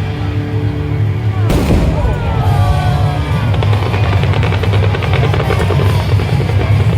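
Fireworks display heard over loud music with a heavy bass. A firework bursts about a second and a half in, followed by falling whistles and a long run of crackling.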